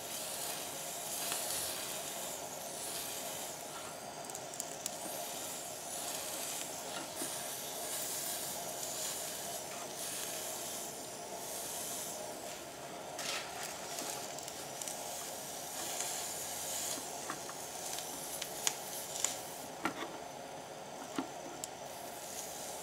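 Homemade electro-polishing wand sizzling and crackling against a rusty steel hammer head as current passes through the electrolyte, stripping the surface rust. The hiss is steady, with a scatter of sharper crackles near the end.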